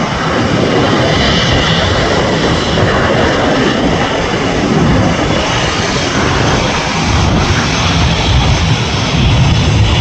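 Boeing 737's twin jet engines at takeoff thrust through the takeoff roll, rotation and lift-off: a steady, loud rush of engine noise.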